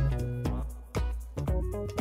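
Upbeat background music with a steady beat of about two a second over a bass line.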